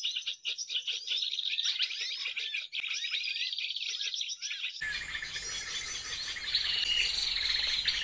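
A flock of small songbirds chirping and trilling rapidly over one another, many calls overlapping. About five seconds in the sound cuts to a hissier stretch of chirping with a short, steady whistled note near the end.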